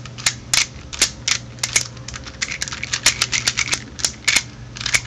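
Rubik's Groove Domino 3x3x2 puzzle being turned quickly by hand, its freshly lubricated plastic layers clicking and clacking in rapid, irregular snaps.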